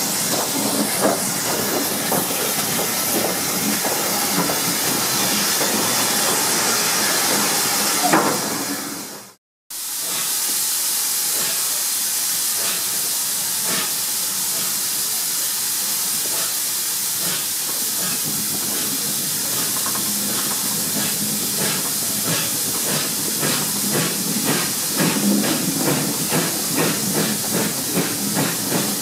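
Steam train running, heard from an open carriage window: a steady hiss of steam and rushing air. It cuts out suddenly for a moment about nine seconds in, then returns with a regular beat that grows stronger and quicker toward the end as the train gathers speed.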